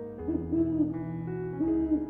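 A low hooting call that rises and falls in pitch, heard twice, over soft background music of sustained keyboard chords.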